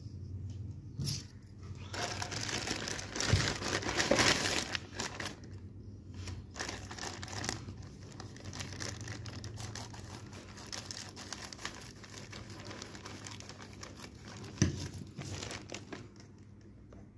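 Plastic courier mailer bag crinkling and rustling as it is handled and opened by hand, loudest in the first few seconds, with a single sharp knock near the end.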